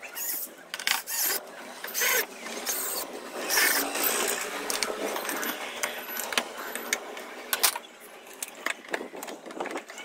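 Irregular clicks, knocks and short scraping bursts of tools and metal parts being handled and set down during washing machine reassembly, with one sharp click about two-thirds of the way through.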